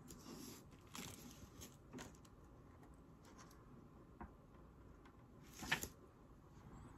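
Near silence with faint handling noises from hands picking up small items: a few soft clicks and rustles, and one louder brief rustle near the end.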